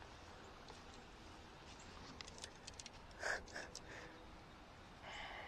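Faint footsteps crunching through dry fallen leaves, a scattered run of light crackles, with a louder crunch about three seconds in and another just before the end.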